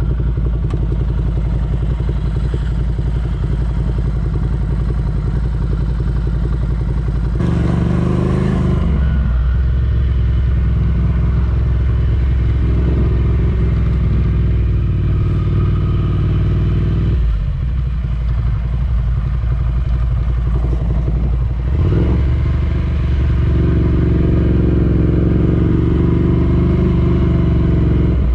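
Ducati Scrambler Desert Sled's 803 cc air-cooled L-twin engine running while riding, its pitch shifting several times as the throttle and gears change, first about seven seconds in and again past the middle and near the end.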